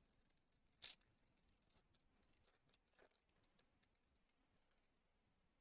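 Near silence, with one brief rustle of a foil trading-card pack wrapper just under a second in and a few faint ticks of cards being handled.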